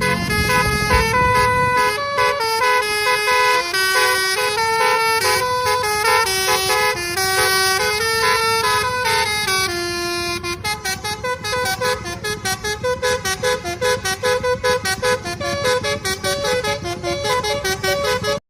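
Telolet basuri musical bus air horn playing a tune of stepped horn notes. About halfway through it switches to a fast staccato of short blasts. A low rumble sits under the first couple of seconds.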